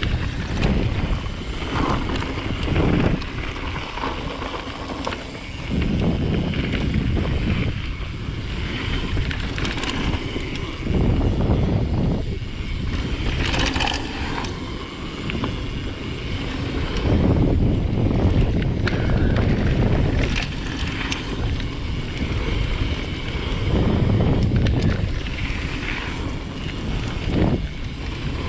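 Wind buffeting a GoPro Hero 7 Black's microphone as a mountain bike rolls fast down a dirt flow trail, with tyre rumble on the dirt and the bike clattering over bumps; the wind noise swells and drops every few seconds with speed.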